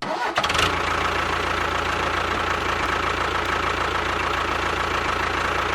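A motor running steadily, with a low hum under a thin high whine; it starts abruptly at the beginning.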